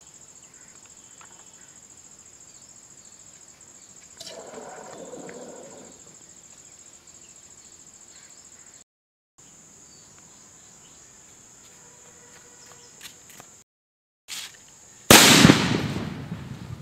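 A firecracker set in the mouth of a water-filled plastic bottle goes off in one loud bang near the end, dying away over about a second and a half as it blows the bottle apart. Before it, insects keep up a steady high chirr, and a short hiss comes about four seconds in.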